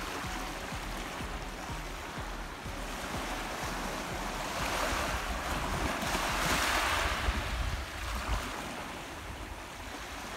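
Small waves lapping and washing up on a gravel-and-shell beach, the wash swelling louder about halfway through, with some wind rumble on the microphone.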